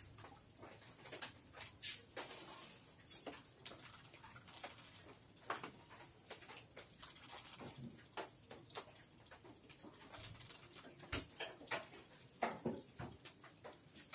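A dog playing with a kitten, mouthing and licking it on a cloth sack: faint, irregular rustles and clicks, with a few sharper taps near the end.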